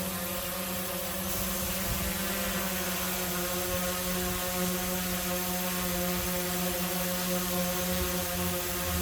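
Autel Evo quadcopter drone's motors and propellers running, a steady buzzing hum made of several fixed pitches over a rushing of air, growing slightly louder about a second in.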